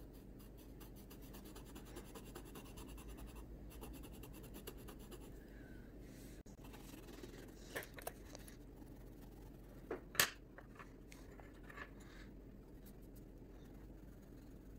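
Coloured pencil scratching on drawing paper in rapid back-and-forth shading strokes for the first six seconds or so. After that come a few sharp taps, the loudest about ten seconds in, as the pencils are laid down and swapped.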